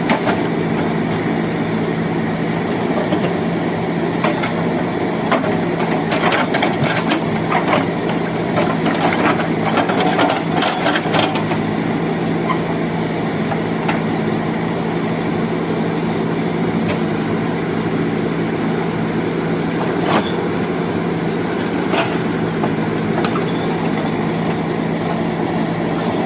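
Backhoe loader's diesel engine running at a steady, constant speed, with a scatter of sharp knocks and clanks from about six to eleven seconds in and a couple more later.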